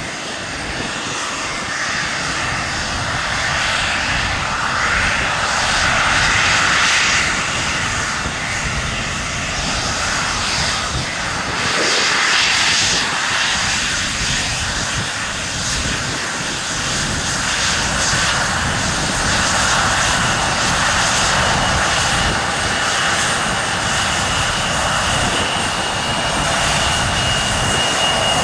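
Turbofan engines of a Fuji Dream Airlines Embraer regional jet running with a steady rush. A thin high whine comes in about three-quarters of the way through and grows.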